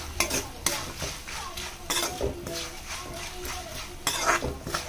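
Metal spatula stirring and scraping a tempering of peanuts, cashews and dals in oil around a metal kadhai, with irregular scrapes and clinks over a light sizzle. The scraping is busiest near the end.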